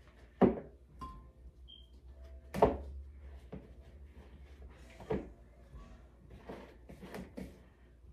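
Kitchen handling sounds while juice pulp is squeezed through a straining cloth: three sharp knocks about two seconds apart, then a few softer knocks near the end, over a low steady hum.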